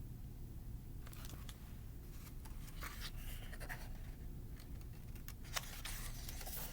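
Faint paper rustling and a few light clicks from a picture book being handled, its pages being turned, over a low steady hum.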